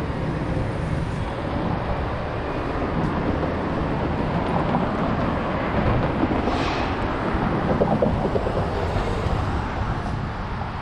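Steady street traffic noise: vehicles running and passing.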